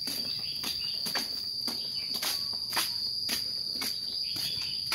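Insect chorus with a steady, unbroken high-pitched trill, and faint rustling clicks about twice a second.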